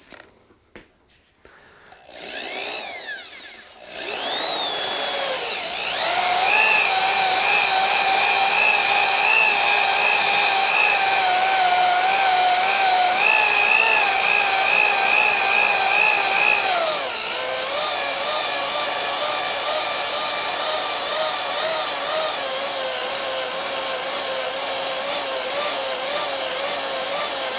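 Power drill spinning a ball hone inside the oiled cylinder bore of a Yamaha G29 golf cart engine. The drill speeds up with a rising whine about two seconds in, then runs loudly with a slightly wavering pitch. About seventeen seconds in it drops to a lower, quieter whine, and it stops right at the end.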